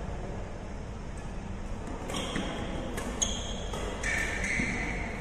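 Badminton doubles rally: sharp cracks of rackets hitting the shuttlecock, several in quick succession from about two seconds in, then a short high squeak of a court shoe on the floor for about a second near the end.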